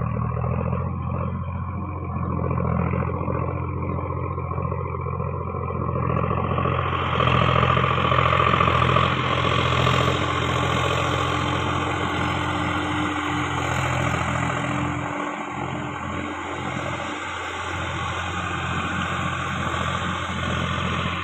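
A motor running steadily, with a hiss that grows louder and brighter from about seven seconds in.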